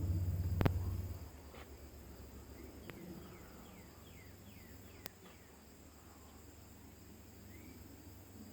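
Low rumble from an aircraft passing overhead, the kind of sound the man likens to a military plane, fading away about a second and a half in. What follows is quiet outdoor ambience with a series of faint short chirps and a few small clicks.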